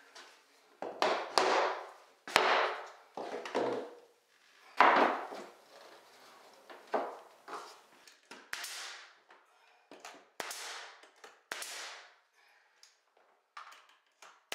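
Hitachi 18-gauge pneumatic brad nailer firing brads into MDF baseboard, about ten shots spaced irregularly, each a sharp pop followed by a short hiss of exhaust air.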